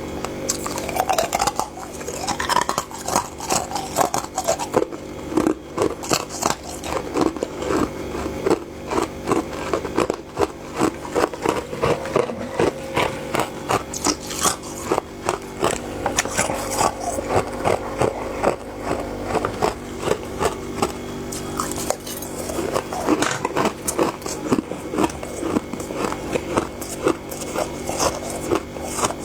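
Close-miked biting and chewing of soft freezer frost, with a long run of repeated crackly crunches over a steady faint hum.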